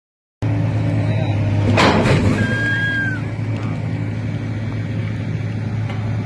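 Excavator's diesel engine running at a steady speed, a constant low drone. About two seconds in there is a short, loud rushing hiss, followed by a brief high whistle-like tone.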